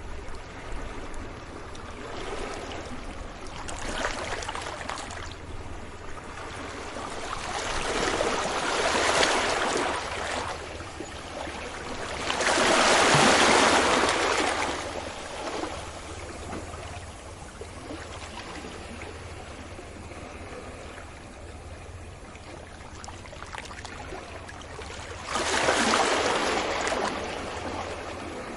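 Sea waves breaking on a beach and washing back, in four surges: the loudest comes about halfway through, and the last one swells up suddenly near the end.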